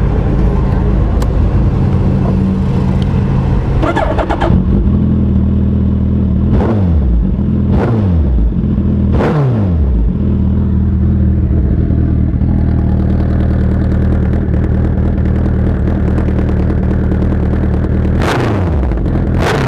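Suzuki Hayabusa inline-four engine idling through a pair of used Jardine aftermarket silencers. It gives three sharp throttle blips about six to nine seconds in and two more near the end, the revs dropping quickly back to idle each time.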